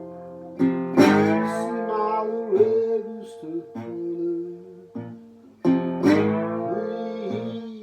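Acoustic guitar playing a blues instrumental break: chords struck about a second in and again near the end, let ring, with some bent notes between.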